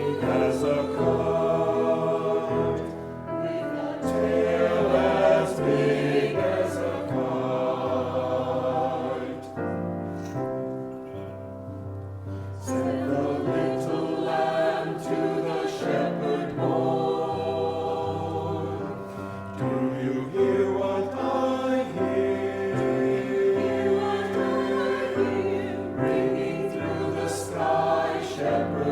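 A choir singing, with sustained chords that soften about ten seconds in and then build again.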